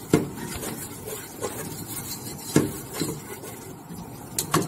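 Silicone-coated balloon whisk stirring a thick butter-and-flour roux in a nonstick pot, with a steady scraping rub and a few sharp clacks of the whisk against the pot.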